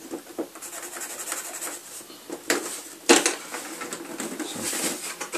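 Handling noise from a Casio keyboard's plastic case: rubbing and light clicks, with two loud knocks about two and a half and three seconds in as the keyboard is turned over and set down.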